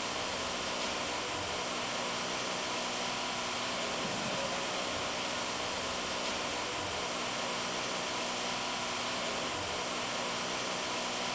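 Steady factory hum and hiss of ventilation and machinery in a battery assembly hall, even and unbroken throughout.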